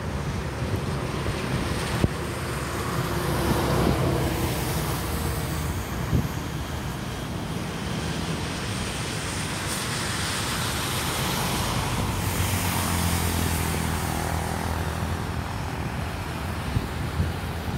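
Boeing 737-800 on final approach: the steady rushing hum of its CFM56 turbofan engines, mixed with wind noise on the microphone.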